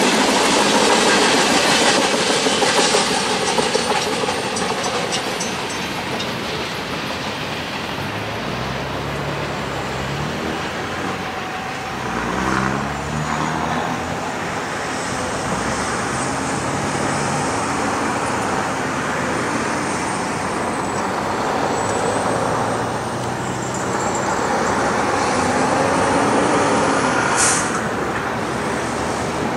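Freight train cars rolling past, wheels clattering on the rails, the noise easing off as the end of the train goes by and draws away. A deeper engine note steps up in pitch a few times near the middle, and a brief high hiss sounds near the end.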